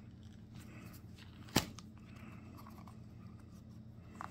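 Faint rubbing and handling of a rubber bicycle handlebar grip as it is worked by hand, with one sharp click about a second and a half in. A low steady hum runs underneath.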